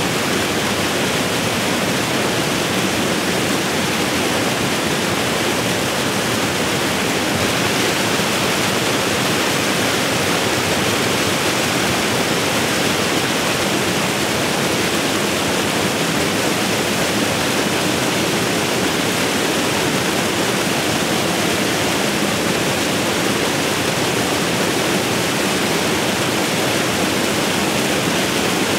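Warta river spilling over a low ledge into rapids: a steady, loud rush of churning white water.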